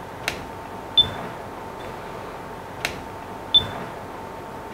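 Nikon Coolpix P1000 mode dial being turned, with sharp clicks three times. About 0.7 s after each of the first two clicks the camera gives a short high electronic beep as it switches shooting mode.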